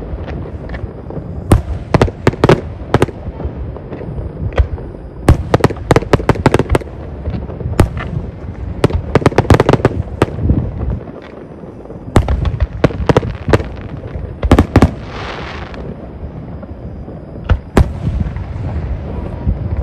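Fireworks going off: many sharp bangs in quick clusters over a continuous low rumble, with a brief hiss about fifteen seconds in.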